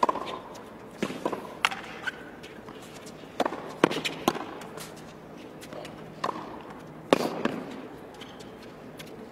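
Tennis rally on a hard court: a dozen or so sharp cracks of racket strings hitting the ball and the ball bouncing, irregularly spaced about half a second to a second apart, with a short player's grunt on some of the shots.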